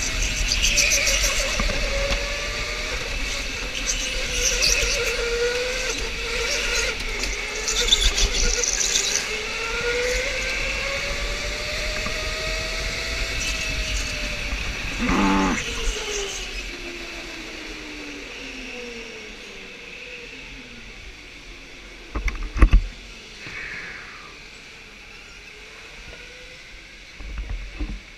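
Electric go-kart motor whining, its pitch rising and falling as the kart speeds up and slows through the corners, with tyres squealing in the first turns. A couple of sharp knocks come about 22 seconds in.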